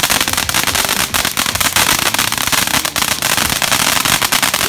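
Fireworks going off: dense, continuous crackling with many sharp pops close together.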